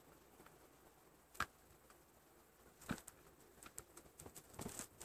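Faint clicks and taps from a small pot of black paint being handled as its lid is worked open: one sharp click about a second and a half in, another near the middle, then a run of small ticks near the end.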